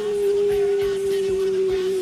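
Rock song with a singer holding one long, steady note over the backing.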